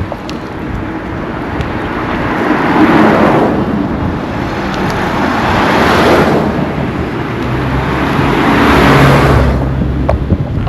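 Road vehicles passing close by one after another, each one's tyre and engine noise swelling and fading, three times in all; the last pass has a low engine hum under it.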